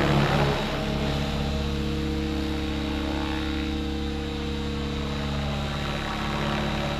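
Align T-Rex 700X electric RC helicopter in flight, its main rotor spinning at about 2000 rpm headspeed with a steady, even drone from rotor and motor. Louder and rougher for the first moment, settling to a steadier, slightly quieter level under a second in.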